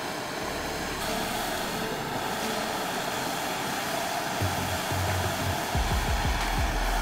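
Handheld propane torch burning with a steady hiss as it heats a steel flat bar for bending. Background music with low bass notes comes in about four and a half seconds in.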